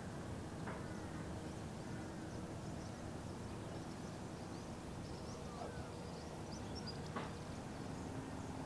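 Steady low outdoor background noise with a faint hum, a few faint high bird chirps past the middle, and a couple of soft clicks.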